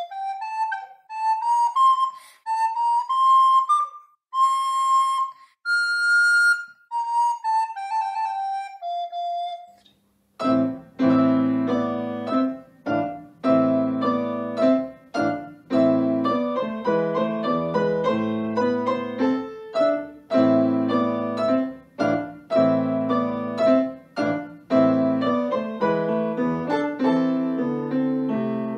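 A recorder plays a solo melody that descends to a held final note. After a brief pause about ten seconds in, a grand piano played four hands starts a lively piece of steady rhythmic chords.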